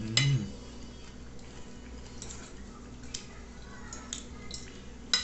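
Close-up eating sounds of a person chewing meatballs in tomato sauce: wet mouth clicks and smacks scattered through, with a short loud mouth sound at the very start and another sharp click just before the end.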